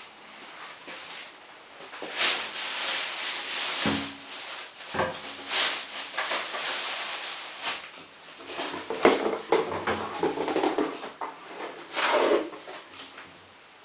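Net curtain fabric rustling and rubbing as it is handled and pushed into a washing machine drum, in long bursts with a couple of short knocks.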